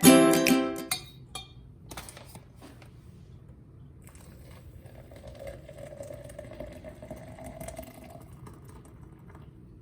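A plucked-string music phrase ends about a second in, followed by low background noise with scattered faint clicks and a faint steady hum that fades out near the end.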